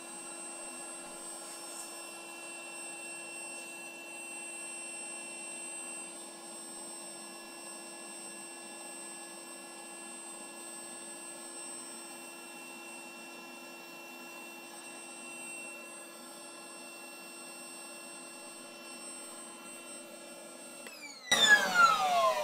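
Einhell Pressito hybrid compressor running steadily with a whine of several held tones as it inflates a latex balloon. It stops about 21 seconds in, and a louder squeal sliding down in pitch follows: air escaping through the stretched balloon neck.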